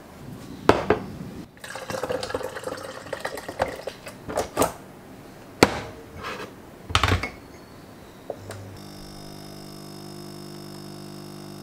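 Clicks and knocks of a mug and coffee capsule being handled, then, from about nine seconds in, a capsule espresso machine's pump running with a steady hum as it brews coffee into a mug.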